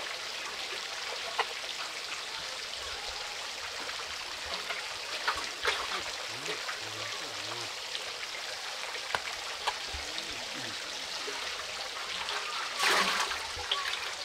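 Steady trickling of running water with a few light handling knocks, then a short splash about 13 seconds in as a rohu fish is lowered into a water-filled pot.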